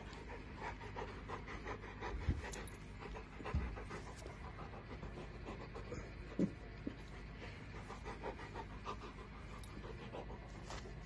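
Bernese mountain dog panting quickly and steadily right at the microphone, with a few dull bumps.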